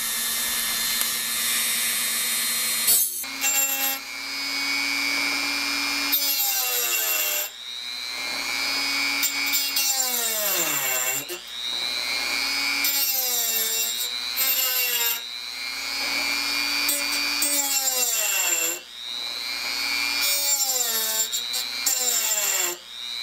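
Dremel rotary tool running at high speed with a small grinding stone dressing the teeth of a hole saw: a steady whine whose pitch sags each time the stone bears down on a tooth and then recovers, about every four seconds, with a gritty scraping of stone on steel.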